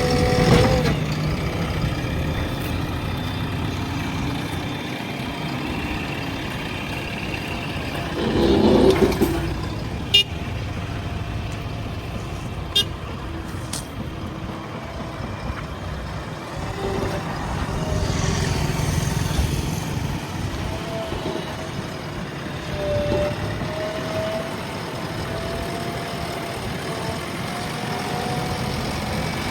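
JCB backhoe loader's diesel engine running steadily as the machine works, swelling briefly about a third of the way in. Two short, sharp metallic knocks come near the middle, and a thin whine rises slowly in the second half.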